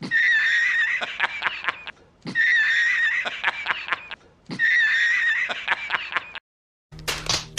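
A comic laughing sound effect, a snickering clip edited in and played three times in a row, each time opening with a thump. Near the end a different, noisier sound begins.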